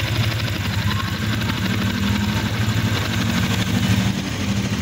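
Yamaha Sniper 155's single-cylinder, liquid-cooled four-stroke engine idling steadily while its new radiator is filled with coolant.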